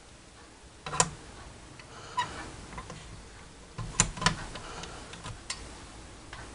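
A handful of separate sharp clicks and light knocks as a graphics card's circuit board and its cooler are handled and fitted together, with a close pair of clicks about two thirds of the way through.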